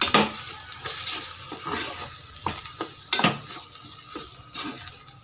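Ground masala paste sizzling in oil in a steel pot while a spoon stirs it in, with irregular scrapes and clinks of the spoon against the pan about once a second.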